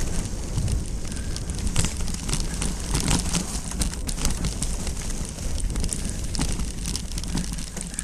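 Mountain bike descending a dirt singletrack: tyres rolling over loose dirt and debris with frequent sharp clicks and rattles, over a steady low rumble of wind on the microphone.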